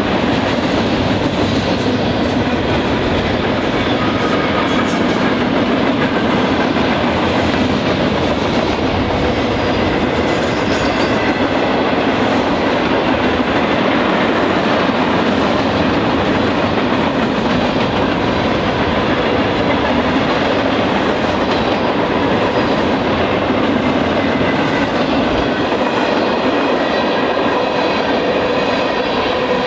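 Freight cars of a manifest train rolling steadily past on the near track: the continuous noise of steel wheels running on the rails.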